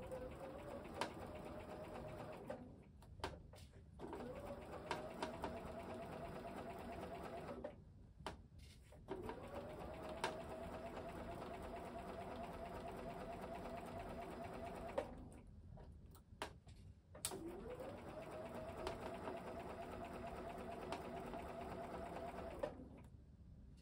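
Bernina B 770 sewing machine stitching in four runs of about two to five seconds each, stopping between them. At the start of each run its motor whirs up to speed, then hums at a steady pitch. A few light clicks fall in the pauses.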